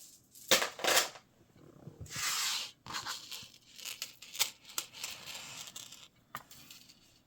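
Handling noises: two sharp clicks, then plastic rustling and a run of small clicks and taps, as jewelry pieces and their packaging are handled.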